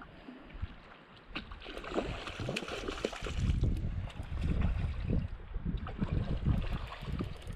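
Gusty wind buffeting the microphone in uneven swells, over water lapping and splashing, with scattered faint clicks.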